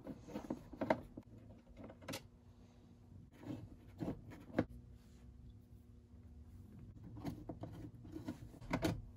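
Irregular light clicks and knocks of a screwdriver, screws and the old cardboard glove box being handled as its mounting screws are taken out, over a faint steady hum.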